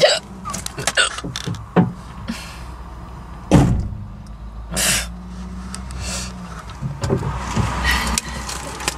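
A car bonnet shut with a heavy thud about three and a half seconds in, heard from inside the car, among smaller clicks and knocks. Near the end the driver's door is opened.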